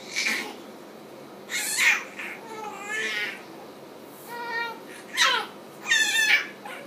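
Baby squealing and babbling in short, high-pitched cries, about half a dozen of them, some with a wavering pitch.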